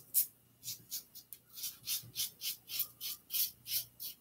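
Timeless Titanium .68 safety razor with a Gillette Nacet blade scraping through lathered neck stubble on an against-the-grain pass, in a quick run of short strokes about three a second.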